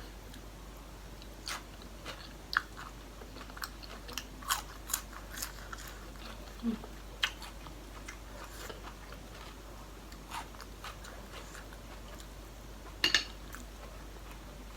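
A person chewing and biting into a spicy Thai seafood salad of raw shrimp and cockles close to the microphone: scattered short wet clicks and crunches, with a louder cluster near the end.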